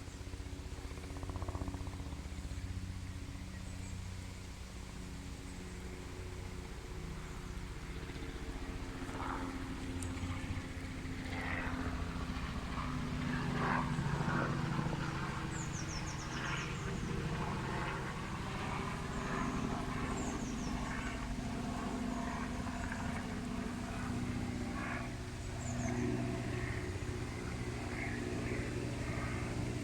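A motor engine running steadily with a low drone, joined from the middle on by short, high, falling bird chirps every few seconds.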